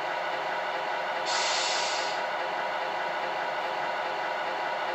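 Sound module of a radio-controlled Scania R620 truck model playing a steady diesel idle. About a second in there is a burst of air-brake hiss lasting just under a second.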